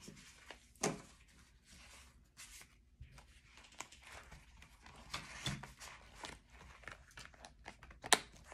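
Rustling and crinkling of paper and plastic as cash envelopes and binder pages are handled, with scattered light clicks and a sharper click near the end.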